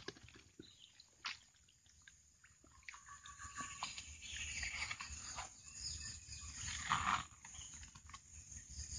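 Handling noises from a wire-mesh fish cage in shallow swamp water: a few faint knocks and drips at first, then from about three seconds in uneven rustling and sloshing as a woven sack and metal plate are laid over the cage.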